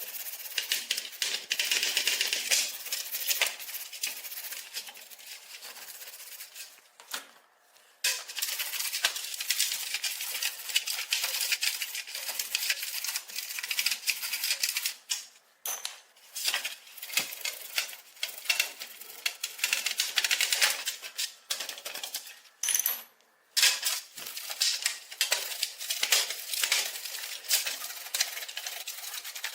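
Rapid, dense clicking and rasping from hand work on the stove's metal parts, broken by a few short pauses.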